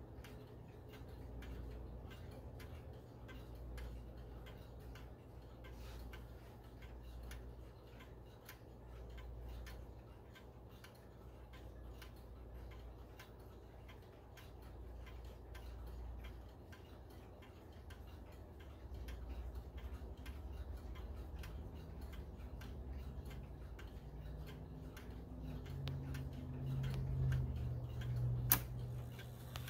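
A 1994 Howard Miller Jennison triple-chime wall clock's movement ticking steadily and quietly. A single sharp click comes near the end, with the hands at the top of the hour.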